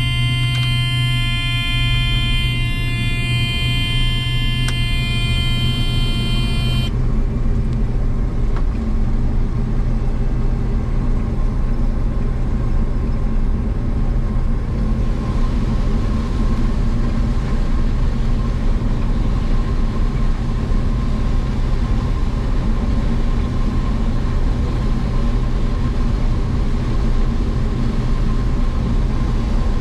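Harvest machinery engine running at a steady low drone. For about the first seven seconds a steady high buzzing tone sounds over it, then cuts off suddenly.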